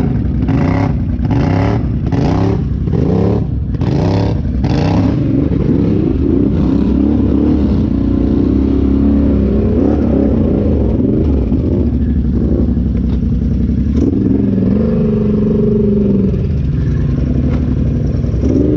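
Off-road side-by-side engine revving under load while driving, with rhythmic surges of noise about every 0.7 seconds for the first five seconds, then steadier running whose pitch rises and falls with the throttle.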